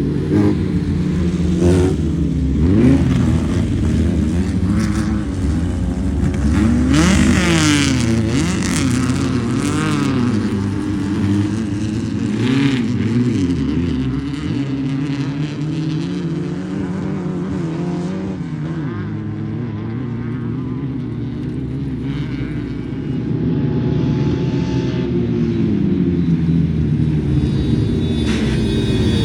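Off-road race cars running and revving, several engine notes overlapping and rising and falling in pitch as they pass, with a spell of hiss about a quarter of the way in.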